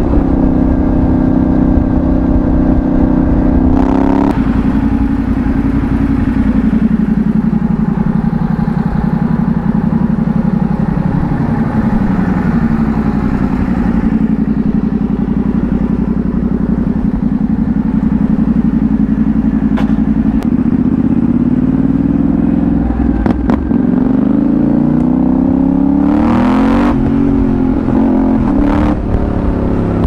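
Yamaha Ténéré 700's CP2 689 cc parallel-twin running through a Dominator GP1 aftermarket exhaust while the bike is ridden. The engine note holds steady, drops suddenly about four seconds in, then slowly falls and rises with road speed. It climbs again near the end before dropping once more.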